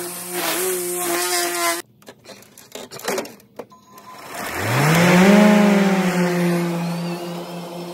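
Battery-powered electric lawn tool motor whining steadily, cutting off about two seconds in, followed by a few light clicks. About four seconds in a motor spins up with a sharply rising whine, then runs at a steady pitch and slowly fades.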